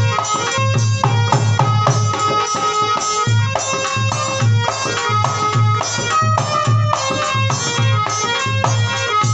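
Instrumental interlude of a Hindi devotional bhajan: a harmonium plays a stepping melody of sustained reedy notes over a steady beat from a dholak, its deep bass strokes and sharper slaps keeping time.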